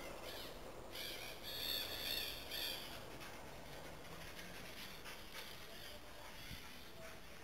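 A run of high, harsh, bird-like squawking calls lasting about two seconds, starting about a second in, over a faint steady background.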